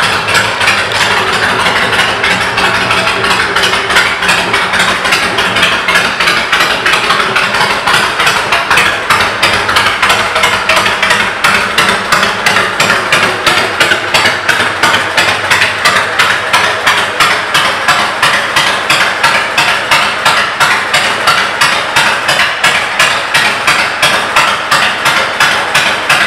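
2008 Honda VTX 1300C's V-twin idling through aftermarket Vance & Hines pipes: a loud, steady run of even exhaust pulses.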